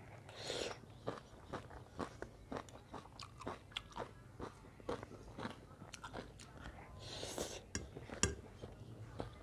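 Close-miked mouth sounds of a person eating chow mein noodles: wet chewing clicks about twice a second. Noodles are slurped in about half a second in and again about seven seconds in, and there is one sharp click just after eight seconds.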